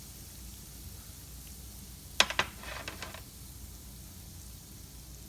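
Curry spice mix frying in oil in a pan with a faint, steady sizzle. A little over two seconds in come two sharp clicks, then a brief patter of smaller ones.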